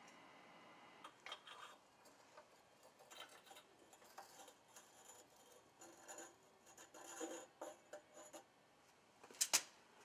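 Faint, scattered metal clinks and scrapes of steel crucible tongs against the electric melting furnace as the crucible is opened up and lifted out, with a sharper double click near the end.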